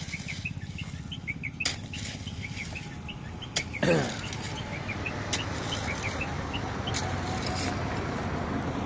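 Small birds chirping over and over, above a steady low rumble, with a sharp click about every second and a half.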